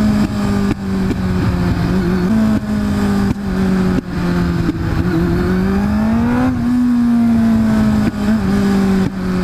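Kawasaki Z750's inline-four engine running through an aftermarket sport exhaust while riding at a steady cruise. About five seconds in the revs rise for a second and a half, then fall away again.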